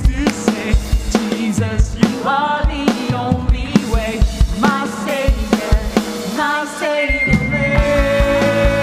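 Live worship band playing: a man singing lead over drum kit, electric guitar and keyboard. About seven seconds in, the voice stops and the band holds a sustained chord with the drums still going.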